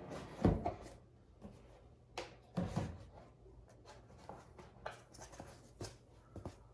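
A wall clock being lifted out of its cardboard box and packaging: a knock about half a second in, scraping and thuds around two to three seconds in, then scattered light clicks and taps.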